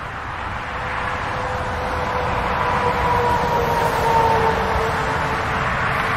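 City street traffic ambience: a steady wash of passing vehicles, growing louder over the first few seconds. A faint held tone drifts slightly downward from about a second in until near the end.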